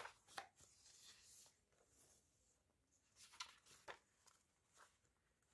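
Near silence, with a few faint rustles of comic book pages being turned by hand, mostly around three to four seconds in.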